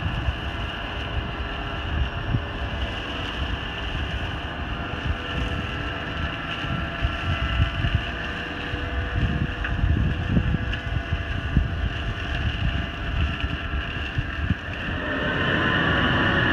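Valtra N111 tractor's diesel engine running steadily while the Spearhead flail hedge trimmer spins and cuts the hedge, with wind buffeting the microphone. About fifteen seconds in the sound becomes louder and closer as the tractor is near.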